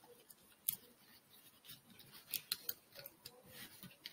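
Origami paper crinkling and rustling faintly under the fingers as a folded paper model is pressed and creased, in scattered short crackles, the sharpest just under a second in.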